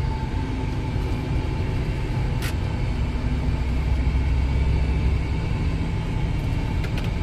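Steady engine and road rumble inside the cab of a Scania semi truck heading down a mountain grade, with a single click about two and a half seconds in.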